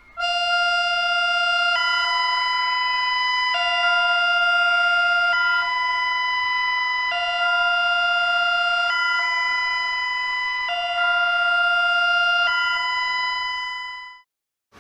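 Bulgarian emergency alert tone: an electronic two-tone alarm that alternates between a lower and a higher pitch about every second and three-quarters, cutting off shortly before the end.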